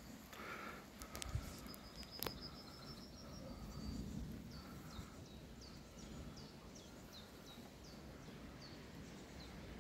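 Songbirds calling outdoors: a quick high trill, then short downward-slurred call notes repeated about twice a second. Underneath is a low rumble that swells around the middle, and two sharp knocks come near the start.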